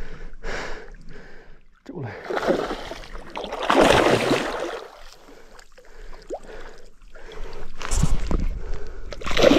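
A hooked giant snakehead thrashing and splashing at the water's surface as it is reeled in, in several surges, the biggest about four seconds in and more near the end.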